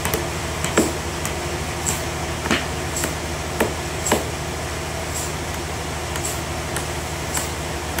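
Hammer blows knocking a wooden wedge against a large log on a bandsaw mill carriage: several sharp knocks in the first half, the loudest about a second in. Under them runs the steady hum of the sawmill's machinery.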